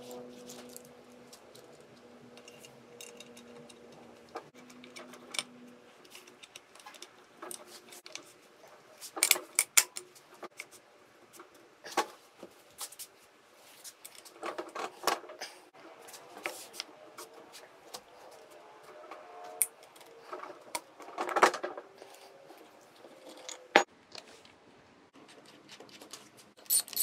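Scattered metal clicks and clinks as Honda VTEC rocker arms and a rocker shaft are handled and fitted onto an aluminium cylinder head. The clicks come at irregular intervals, with a few louder clinks around the middle.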